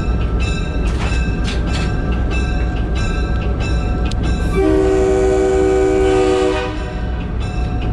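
Locomotive air horn sounding one blast of about two seconds, several notes at once, over the steady rumble of the train running, with a regular click about twice a second.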